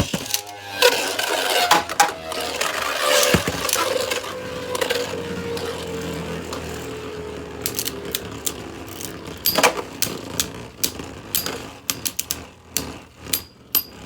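Beyblades launched into a stadium: a sudden clatter, then the spinning tops whir with a tone that slowly falls in pitch as they lose speed. Near the end comes a run of sharp clicks and knocks as they strike each other and the stadium.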